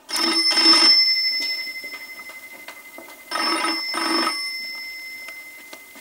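An old black desk telephone's bell ringing: two short rings right at the start and two more about three seconds later, each burst leaving a high ringing tone that fades slowly.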